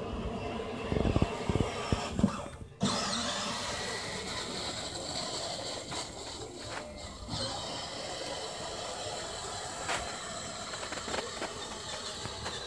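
Electric motor and gearbox of a child's battery-powered ride-on toy Jeep whining steadily as it drives over grass. A few loud low thumps come in the first three seconds.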